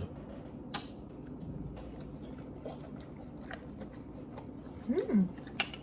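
Someone chewing a bite of steak: soft wet mouth noises and small clicks over a steady low hum, with a short voiced sound near the end.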